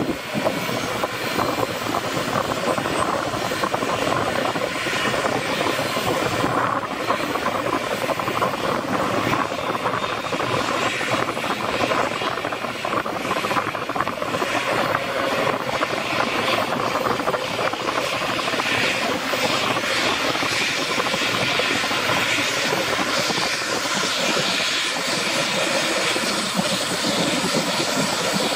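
Twin turbine engines of an EC145 (MBB/Kawasaki BK 117 C-2) helicopter starting up, a steady hiss with a faint whine as the main rotor begins to turn.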